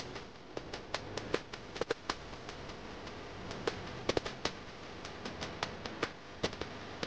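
Irregular sharp clicks and pops, a few a second, over a steady hiss with a faint low hum.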